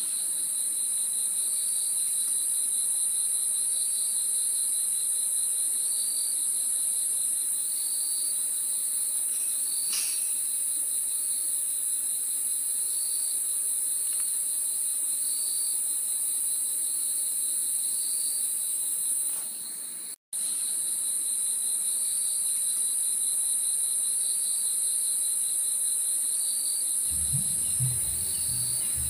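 Night-time chorus of crickets and other insects: a dense, steady, high-pitched drone, with a lower trill that swells about once a second. The sound cuts out for a split second about two-thirds of the way through.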